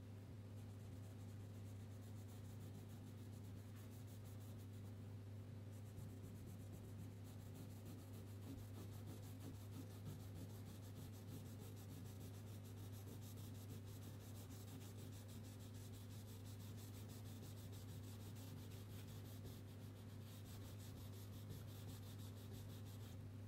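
Crayon rubbing back and forth on paper in quick, faint scratchy strokes, over a steady low hum.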